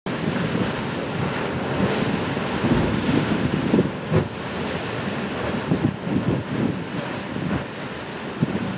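Sea surf surging and washing through a narrow channel between shoreline rocks, a steady rushing wash, with gusts of wind buffeting the microphone.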